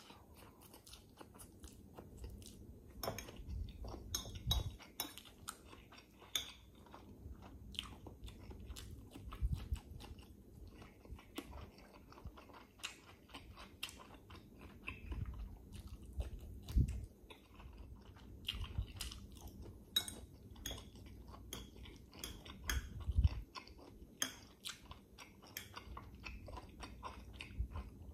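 A person chewing and biting mouthfuls of stir-fried instant noodles (pancit canton) and hotdog close to the microphone: a steady run of small wet mouth clicks, with a few dull thumps.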